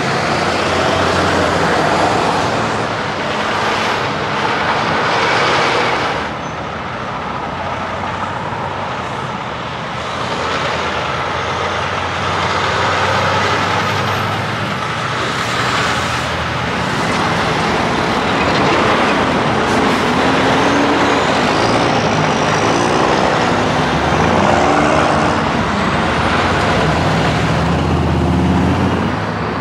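Heavy diesel trucks rolling past one after another, engines running with tyre and road noise. In the second half an engine's pitch rises and falls several times as a truck pulls away.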